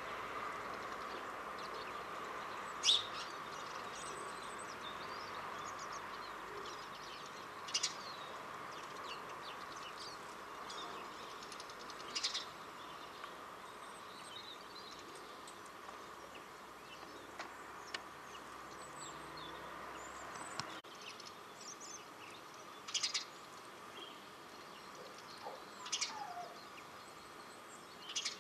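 Small garden birds giving short, high chirps, one every few seconds, faint against a steady background hum.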